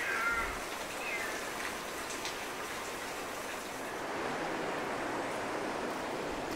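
Steady outdoor ambient noise, an even rushing hiss, with a couple of short falling chirps in the first second or so.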